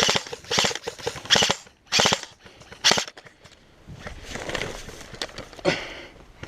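Airsoft rifle firing in short rapid bursts of sharp cracks, about five quick bursts in the first three seconds and another near the end, with a quieter noisy stretch between them.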